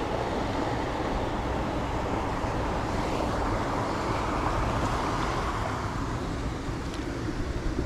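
Wind blowing hard against the microphone: a steady rumbling rush that swells a little midway.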